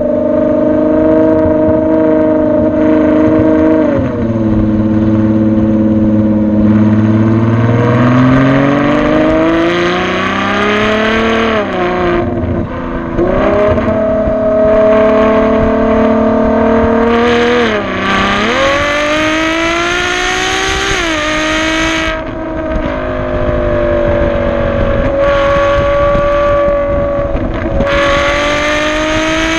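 Ferrari FF's V12 heard right at the tailpipes of its Tubi Style valved exhaust while driving: the engine note climbs and drops back sharply several times as the car accelerates and eases off.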